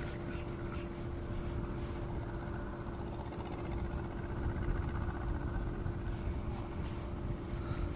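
Steady low rumble of wind on the microphone, with a constant low hum running underneath.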